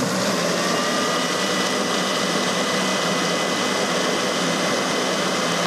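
Electric food processor running steadily as it roughly grinds a cup of quick oats: an even whir with a thin, steady motor whine over it.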